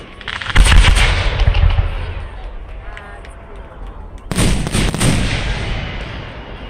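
Aerial fireworks shells bursting in two volleys, one about half a second in and one about four seconds in, each a deep boom followed by a rapid crackle that fades away.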